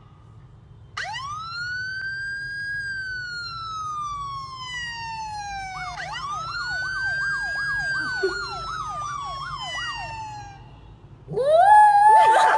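A police-style siren sound wails twice, each time rising quickly and falling slowly, the second wail breaking into a fast warbling yelp. About a second before the end a small white curly-coated dog begins howling along, louder than the siren.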